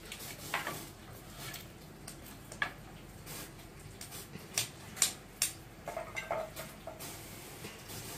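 A handful of sharp clinks and knocks of hard objects, scattered over several seconds, with three close together a little past the middle.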